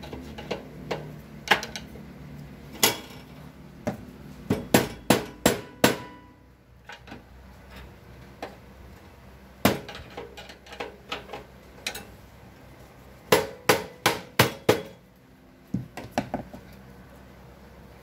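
Sharp metal knocks from a tool tapping on a Paloma gas water heater's metal valve assembly: scattered single taps and two quick runs of about six knocks each, about a third and three quarters of the way through.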